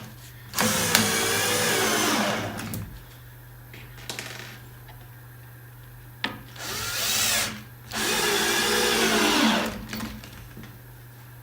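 Power drill driving screws into a plywood workpiece in three runs of a second or two each, the motor's pitch rising and falling within each run.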